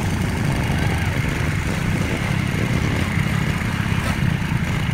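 ATV (quad bike) engines running, a steady low rumble.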